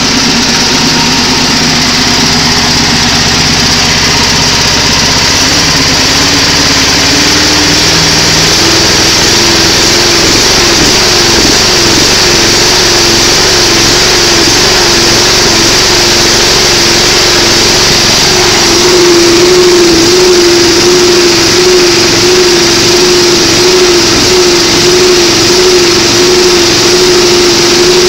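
Small stationary engine running steadily while it spins a rewound Fisher & Paykel Smart Drive washing-machine motor as a generator. About six to eight seconds in the engine speeds up and the generator's whine rises in pitch with it, then holds steady with a slight regular wobble as the output voltage climbs.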